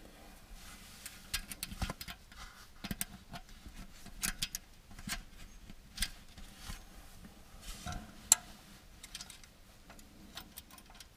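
Small metallic clicks and ticks at irregular spacing as a steel cotter pin is worked through a castle nut on a tractor transmission's pinion shaft, first by hand and then with small pliers, metal tapping against metal.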